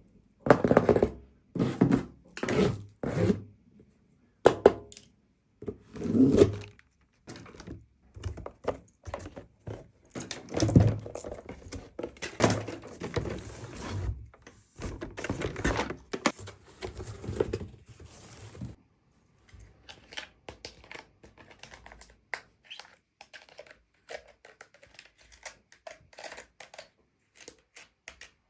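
Toy packaging being unboxed by hand: loud separate thunks of cardboard and plastic pieces for the first several seconds, then a longer stretch of tearing and crinkling packaging, ending in small quiet clicks and taps of plastic parts.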